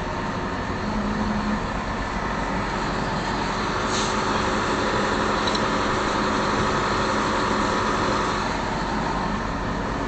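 Case 245 excavator's diesel engine running steadily, rising in level for about five seconds in the middle as the boom is worked to set the hammer down.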